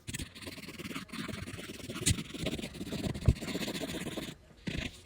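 Rustling and scraping handling noise, with two sharp knocks about two and three seconds in.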